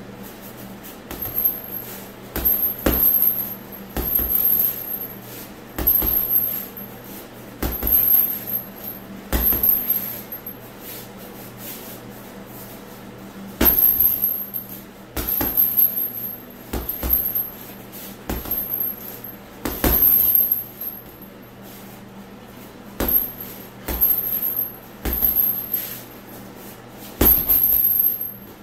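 Gloved punches landing on a heavy punching bag in about a dozen short flurries of jabs and combinations. Each flurry is a few quick hits, and there is a pause of a second or more before the next one. A high rattle comes with each flurry.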